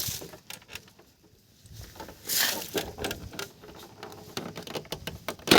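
Plastic clicks, knocks and a brief rustle as a motorcycle's plastic side panel is pulled free of its clips, with a sharp click near the end.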